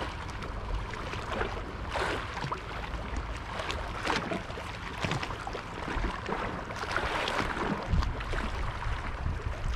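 Small waves lapping and splashing against a rocky seawall, with a louder wash every couple of seconds.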